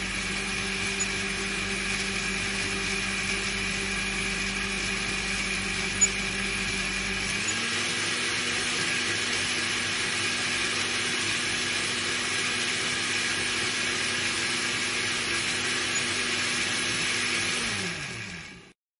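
Small electric motor of a miniature toy concrete mixer running, a steady whirring hum as it turns the tin-can drum. Its pitch steps up slightly a little past halfway, then falls away and stops near the end as the motor is switched off and spins down.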